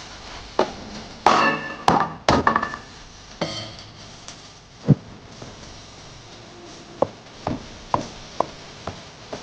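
Kitchen work sounds: sharp knocks and taps, some in the first few seconds ringing briefly. Near the end comes a run of evenly spaced knocks about two a second, like chopping on a cutting board.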